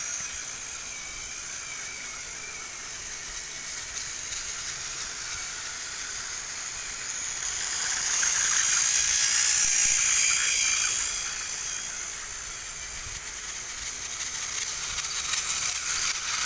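Battery-powered plastic toy train engines running along plastic track: a steady, high-pitched electric motor whine with gear noise, louder for a few seconds around the middle as an engine passes close by.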